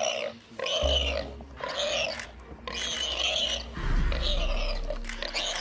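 A warthog squealing over and over in harsh distress cries, each under a second, while a lion holds it down, with a low rumble about four seconds in.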